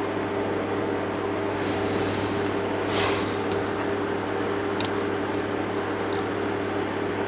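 A steady low hum underlies a breath through the nose near the middle, then a few light clicks of a fork against a plate as a piece of pie is cut.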